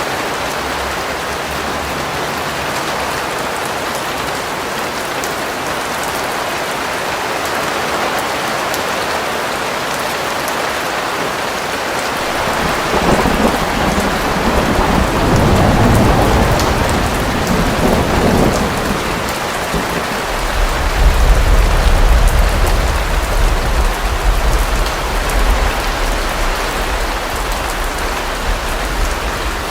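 Steady rain falling, with thunder rumbling from about 13 seconds in and a deeper, louder rumble of thunder through the last third.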